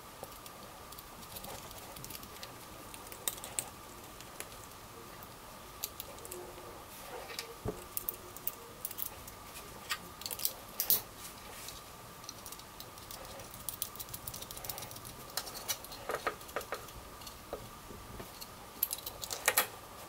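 Small metal clicks and taps as bolted steel angle brackets carrying small abrasive cutting discs are handled and fitted together, the clicks coming in clusters, busiest about halfway through and near the end. A faint steady whine sits underneath.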